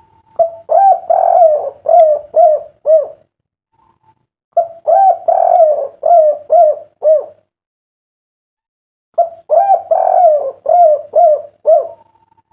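Spotted dove (derkuku) cooing: three song phrases a couple of seconds apart, each a quick run of about six low, rounded coos. This is the 'kuk 3' song type.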